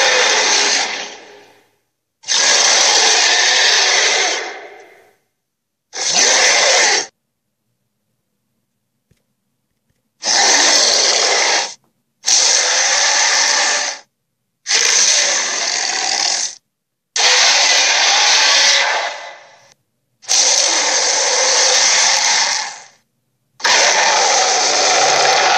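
A string of harsh, raspy creature sound effects: nine loud bursts, each one to three seconds long, that start and stop abruptly, with a silent gap of about three seconds a third of the way through.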